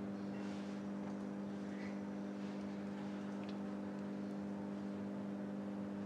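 A steady low hum with a few overtones over faint hiss, unchanging throughout.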